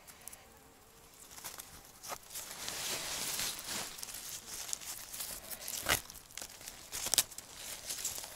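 Birch twigs and leaves rustling and crackling in the hands as a bundle is tied into a bath broom, with a couple of sharp clicks near the end.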